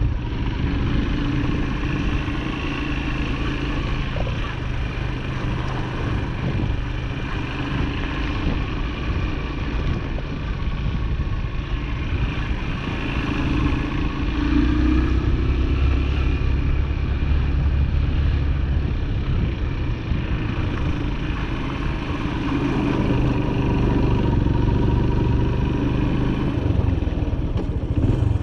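Small farm-vehicle engine running while being ridden, its note rising and falling as it speeds up and slows.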